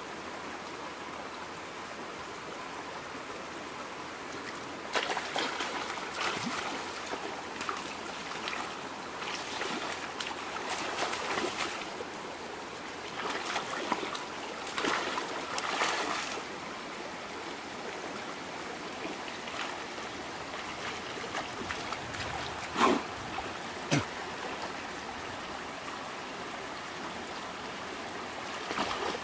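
Shallow stream running over rocks, a steady rush of water. From about five to sixteen seconds in, irregular splashing as hands grope in the water, and near the end two short sharp knocks.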